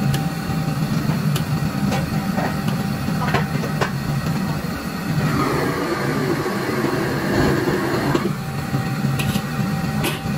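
Steady low roar of a commercial gas wok stove running. A metal ladle clinks and scrapes against the wok a few times, and in the middle the wok is tipped so the fried potato and greens slide out into a steel tray.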